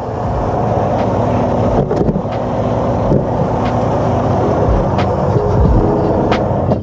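Diesel engine of a semi-truck tractor idling steadily, with a few sharp knocks and clicks from climbing up into the cab.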